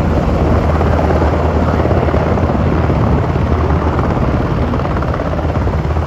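Sikorsky UH-60 Black Hawk helicopter lifting off and climbing, its rotors and turbine engines loud and steady with a deep low end.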